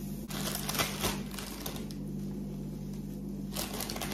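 Crinkling and rustling of a plastic salad-leaf bag as leaves are pulled out and dropped onto a wrap, in short bursts about half a second in and again near the end, over a steady low hum.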